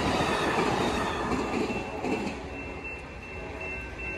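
The last cars of an Amtrak Superliner bilevel passenger train rolling past on the rails, with the rush of the cars fading about two seconds in as the tail end clears. A thin steady high tone is left ringing after the train has passed.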